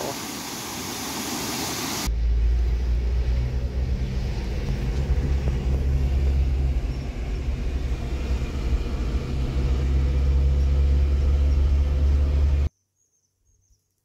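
Steady rushing water of a waterfall. About two seconds in, it cuts to the low, steady rumble of a car on the move, which stops suddenly near the end.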